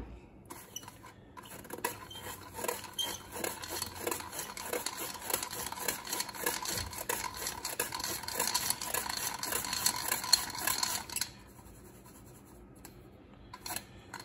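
Hand-crank flour sifter being cranked: its wire agitator scrapes sugar through the mesh screen in a run of quick, repeated scraping strokes, stopping about eleven seconds in.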